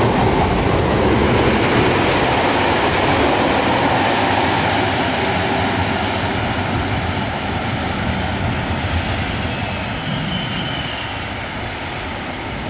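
Train running on the rails, a loud rushing rumble that slowly fades.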